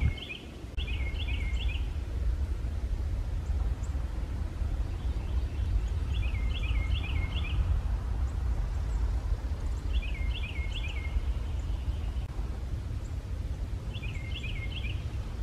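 A small songbird singing a short phrase of three or four quick, looping notes, repeated about every four seconds, over a steady low rumble.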